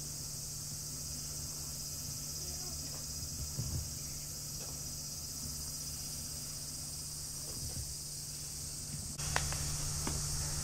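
A steady, high-pitched chorus of cicadas buzzing over a low steady hum, with an abrupt change in the background about nine seconds in and a few light clicks after it.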